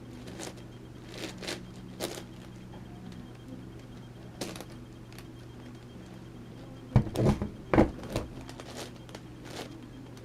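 An 11x11x11 Rubik's cube being turned by hand: scattered plastic clicks as layers are twisted, with a louder run of clacks and knocks about seven to eight seconds in.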